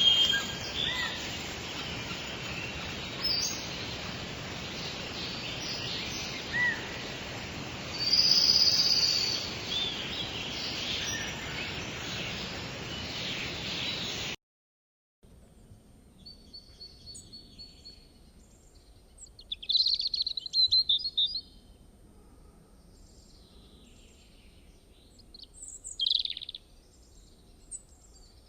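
Steady rain hiss with songbirds chirping over it; about halfway through it stops dead for a moment. It gives way to a much quieter background with scattered bird calls, including a fast trill and a single sharp call near the end.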